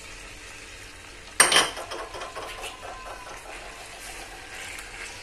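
Squid frying in hot oil in a metal pan, crackling and spitting, with a metal spatula scraping and knocking in the pan. A sudden loud hit about a second and a half in, after which the crackling carries on.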